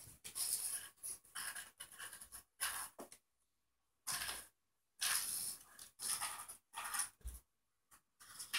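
African grey parrot hissing and huffing in a run of short breathy bursts at an uneven pace, with a brief pause a little past three seconds in, a sign of play or excitement.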